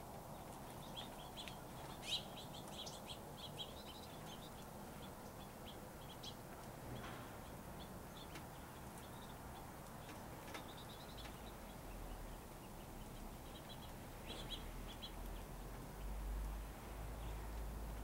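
Finches chirping at a seed feeder: short, high chirps in scattered clusters, a run of several in the first few seconds, a few more around the middle and again near the end, over a steady background hiss. A low rumble comes in during the last few seconds.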